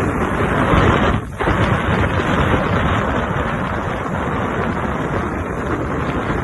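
Wind buffeting the microphone, a loud uneven rumble with a brief lull about a second in.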